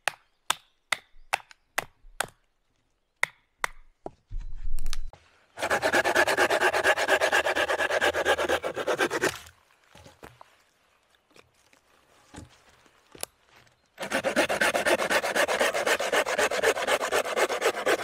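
Wood being sawn by hand for firewood: two bouts of fast, even saw strokes, each a few seconds long, the second starting about two-thirds of the way in. Before them come a string of about ten sharp clicks or snaps in the first few seconds.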